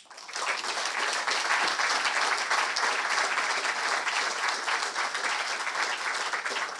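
Audience applauding: a round of clapping that starts suddenly and keeps up at an even level, marking the end of a talk.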